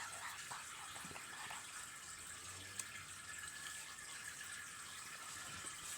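Fish tank water running and trickling with a steady hiss.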